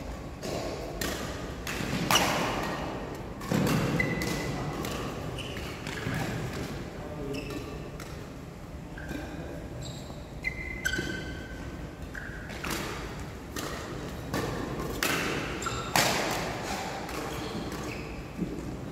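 Badminton rackets striking a shuttlecock during a doubles rally: a string of sharp, irregularly spaced hits that ring in a large hall, with brief high squeaks between them.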